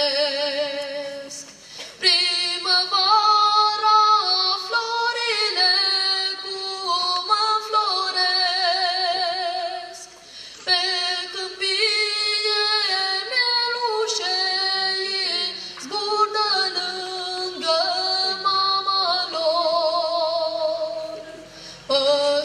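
A boy singing solo into a microphone: a slow song in long held phrases with vibrato, a single voice with short breaks between phrases.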